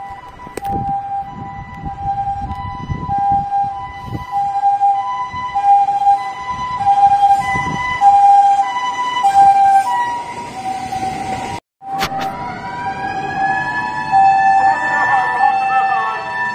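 Japanese ambulance two-tone siren, the "pee-poh" hi-lo, alternating evenly between two steady pitches with road traffic rumbling underneath. After a cut about twelve seconds in, the hi-lo tones continue, joined by a second siren whose wail rises in pitch and then holds steady.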